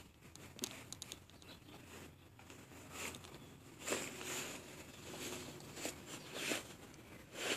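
Faint rustling and light taps of a baby crawling across a fleece blanket and pulling up onto a play mat, a little busier in the second half.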